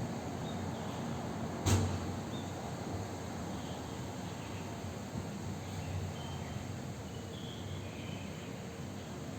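Steady background hiss with faint, scattered bird chirps and insect calls. A single sharp knock comes a little under two seconds in.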